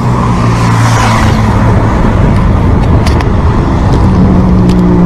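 Wind rushing over the camera microphone on a moving road bike, a loud, steady low rumble, mixed with the hum of a passing motor vehicle that swells briefly about a second in.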